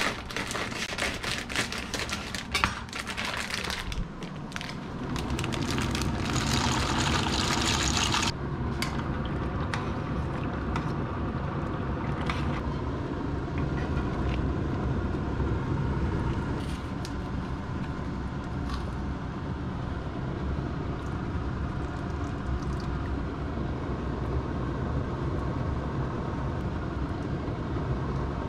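Kitchen cooking sounds: a knife slitting a plastic packet on a cutting board, with rustling and knocks. Then a loud hiss for a few seconds that cuts off suddenly, and after it the steady noise of pots boiling and simmering on an induction hob, with occasional light clinks of stirring.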